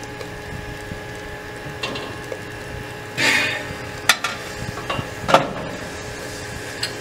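Small steam tank locomotive standing in steam, hissing steadily, with a short loud burst of steam about three seconds in and a few sharp metallic clanks.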